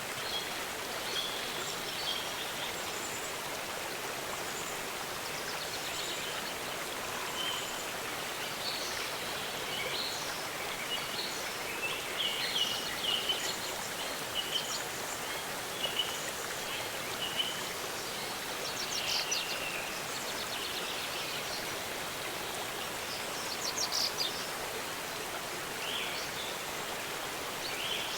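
Steady rush of a waterfall, with small birds chirping and calling over it in short notes and a few quick trills, scattered throughout.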